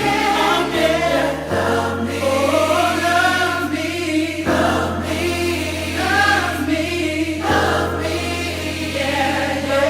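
Music with choral singing: voices sing a wavering melody over long held low chords that change every couple of seconds.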